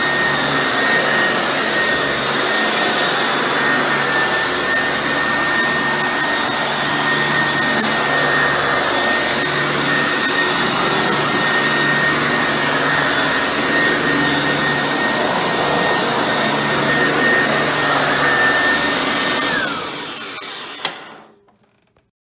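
Eureka Bravo upright vacuum running steadily, its motor just partially rebuilt with one new bearing, a steady high whine over the airflow roar. Near the end it is switched off: the whine falls as the motor spins down, and a sharp click is heard as it goes quiet.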